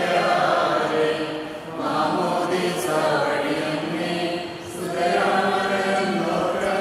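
A group of voices chanting or singing a hymn together, in long phrases with short breaks about two seconds and five seconds in.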